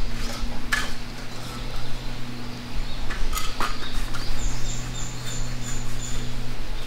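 A few clinks and knocks of camp tableware and gear being tidied on a table, over a steady low hum that stops near the end, with high bird calls.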